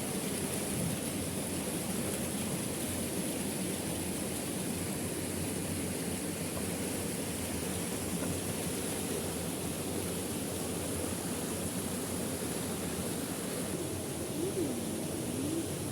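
Waterfall with steady rushing water. A short wavering tone rises and falls near the end.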